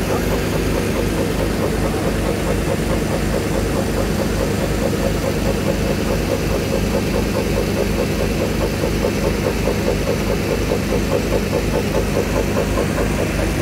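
An engine idling steadily, with a regular low pulsing of about three beats a second.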